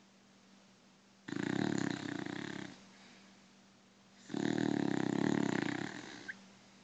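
A beagle snoring: two long, fluttering snores, the first starting about a second in and the second about four seconds in, each lasting around one and a half seconds.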